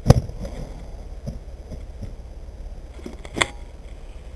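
A loud thump right at the start, then a few faint taps and a sharper knock about three and a half seconds in, over a low steady rumble.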